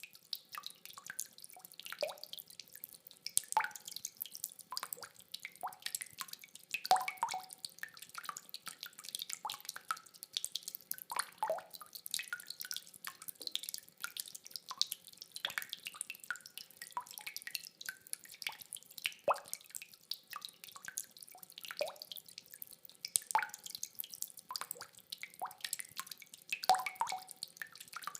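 Rain dripping: irregular water drops, several a second, each a sharp plink, some with a short pitched ring. No thunder.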